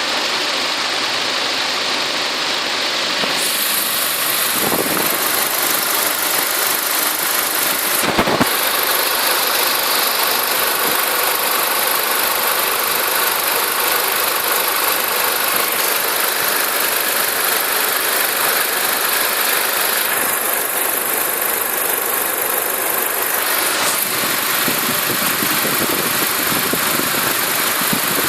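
Audi A4 B6's 2.0-litre ALT four-cylinder petrol engine idling steadily, with an extraneous noise in its running that the owner is trying to track down. Two brief clicks stand out, about 8 and 24 seconds in.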